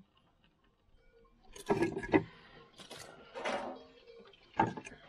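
Firewood and kindling knocking and scraping as sticks are shifted by hand inside a wood-fired dome oven, a few separate wooden clatters, the loudest about two seconds in and another sharp one near the end.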